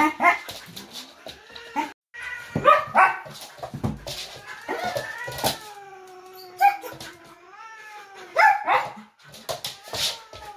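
A cat yowling at a dog in long, wavering, drawn-out growls, a defensive warning to keep off. Several short, sharp, loud outbursts break into the yowling.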